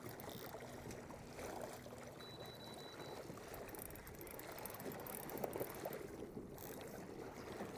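Faint sloshing of sea water against a kayak hull.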